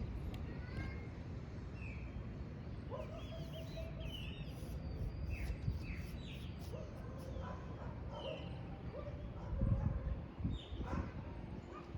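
Wind rumbling on the microphone, with birds chirping in short falling calls every second or so. A stronger gust comes about ten seconds in.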